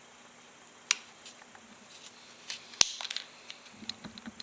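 Plastic sleepers from a length of model train track being separated one at a time, giving two sharp snaps, about a second in and just before three seconds in, with lighter clicks and handling noise around the second snap.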